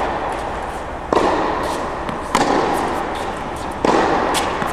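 Tennis balls struck hard with a racket in an indoor tennis hall: three sharp hits about a second and a half apart, each echoing through the hall, with lighter ball bounces between them.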